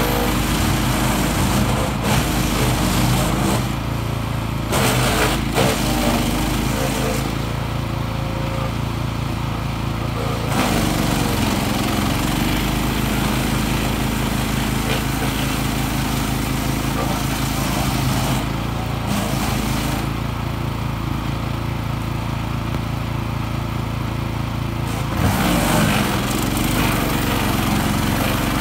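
A 14 hp petrol wood chipper's single-cylinder engine running at a steady high speed while branches are fed in. Several stretches of harsh chipping noise come as the blades bite into the wood, and the engine note dips briefly under the load.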